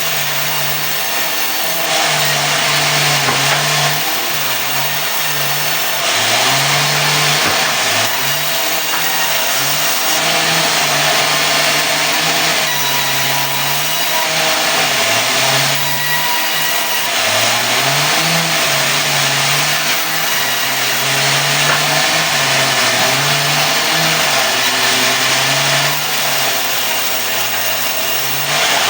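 Engine-driven sawmill running and cutting a mahogany log into boards: a dense, loud sawing noise over an engine whose pitch wavers up and down every second or two as it takes the load.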